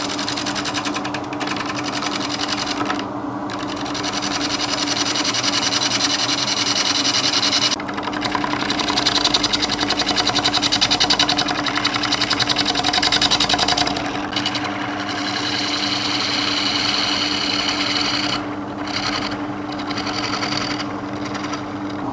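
Wood lathe running with a steady hum while a bowl gouge faces off a large pippy oak platter blank, the cut chattering rhythmically as the tool jumps off the knots. The cutting gets louder for several seconds in the middle.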